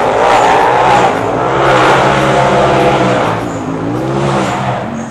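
Off-road race buggy's engine revving hard as it climbs a dirt hill, its pitch rising and falling again and again with the throttle.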